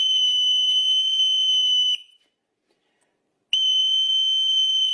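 Sand-covered metal Chladni plate bowed at its edge, ringing one steady high note that stops about two seconds in; after a short silence it is bowed again to the same high note.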